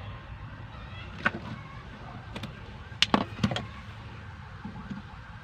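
Several short, sharp plastic and metal clicks as a blade fuse is worked out of a car's fuse box, with the loudest cluster about three seconds in, over a steady low hum.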